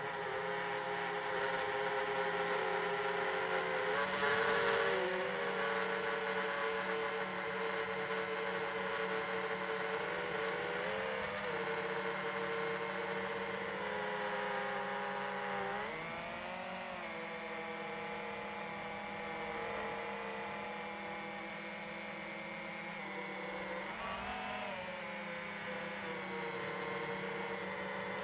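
Electric motor and propeller of a small FPV fixed-wing plane whining steadily in flight, heard from on board. The pitch wavers, steps up about sixteen seconds in, and dips and rises again near twenty-four seconds.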